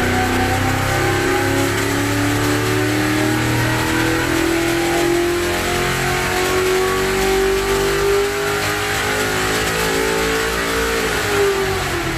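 1969 Corvette racing V8 making a pull on an engine dynamometer: the engine speed climbs steadily for about eleven seconds, then drops quickly as the throttle closes near the end.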